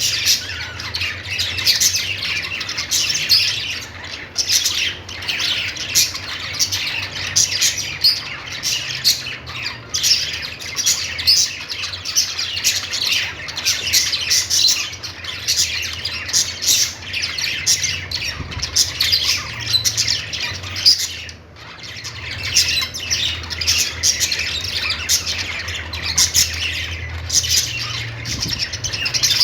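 Budgerigars chattering nonstop: many quick high chirps and short squawks overlapping, with a brief lull about twenty-one seconds in. A faint steady low hum runs underneath.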